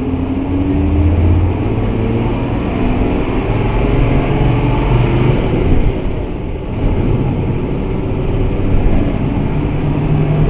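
Mercedes-Benz OF1214 bus's diesel engine heard from inside the passenger cabin while driving, running steadily under load. The engine note dips briefly about six seconds in, then picks up again.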